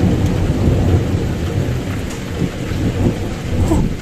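Thunderstorm: thunder rumbling on and off over a heavy, steady downpour of rain.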